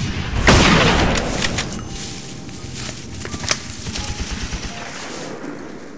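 Battle gunfire: a loud burst about half a second in, followed by scattered single shots.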